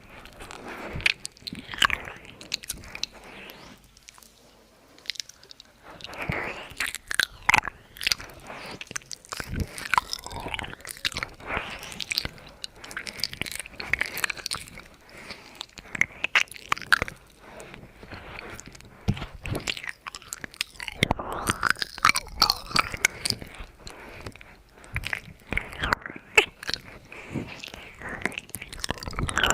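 ASMR mouth sounds: irregular wet clicks and smacks from lips and tongue, in a dense, uneven stream with a short lull about four seconds in.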